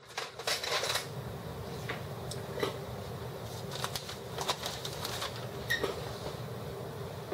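Scattered light clicks and rustles of small objects being handled, over a steady low hum.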